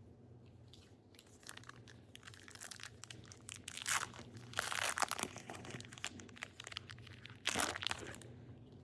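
Trading card pack wrapper being torn open and crinkled by hand, in several rustling bursts, the loudest about four to five seconds in and another near the end.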